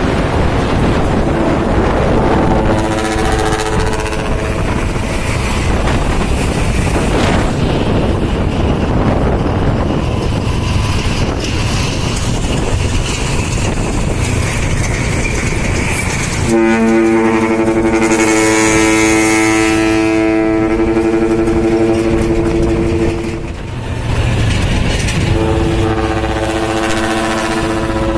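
Dump truck's ship-style air horn sounding a chord in several blasts: a short one about two seconds in, a long one of about seven seconds past the middle, and another near the end, over the steady rumble of the truck's engine.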